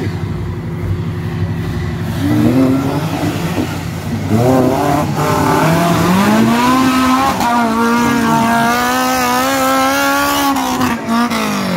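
Off-road 4x4 engine working hard up a muddy, rocky bank. It runs low at first, revs up about four seconds in, holds high with a wavering pitch under load, then drops away near the end.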